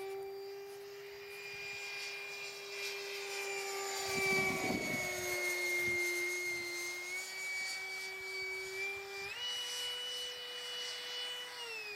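Electric ducted fan of a radio-controlled F-22 Raptor model jet (Wemotec Midi Fan with a Mega 22/30/2 motor) whining steadily in flight. It swells with a rush of air about four seconds in as the model passes closest. About nine seconds in the whine steps up in pitch as the throttle is opened, then drops back near the end.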